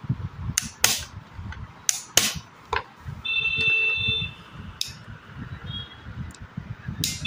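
Sharp metallic clicks and clinks as pliers and a screwdriver work a return spring onto the reverse lever of a heavy sewing machine, heard several times. About three seconds in, a steady high tone sounds for about a second, and again briefly at the end.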